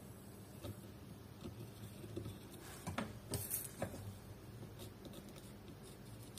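Soldering iron tip scraping and tapping along the pins of a phone display's flex connector on the circuit board: faint scattered clicks and scratches, with a brief hiss as flux burns off about three and a half seconds in.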